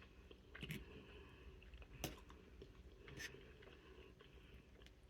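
Faint close-up chewing of food, with three short sharp clicks about a second apart.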